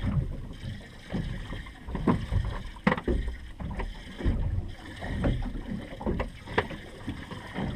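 Wind buffeting the microphone and water slapping against the hull of a center-console fishing boat, with a few sharp knocks and clunks on deck.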